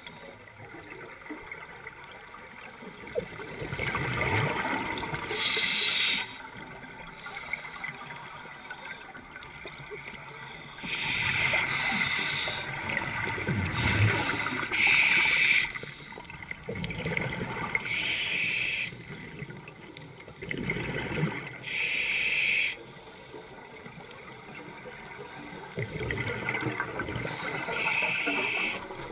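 Scuba regulator breathing underwater: hissing breaths and gurgling bursts of exhaled bubbles, coming back every three to four seconds.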